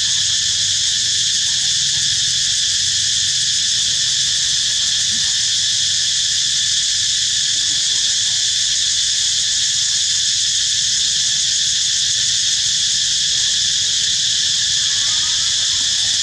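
Loud, steady, shrill chorus of insects, a dense drone in several high bands of pitch.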